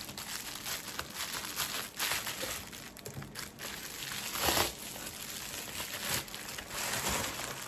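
Packaging crinkling and rustling in irregular bursts as it is handled and opened, with a louder rustle about halfway through.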